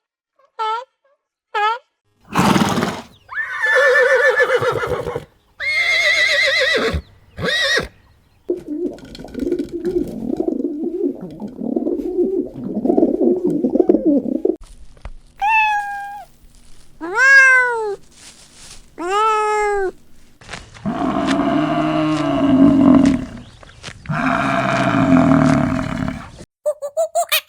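A run of different farm animal calls one after another. It opens with a few short chirps, then comes a stretch of louder cries, several seconds of low grunting, three separate cries that each rise and then fall in pitch, and two long calls near the end.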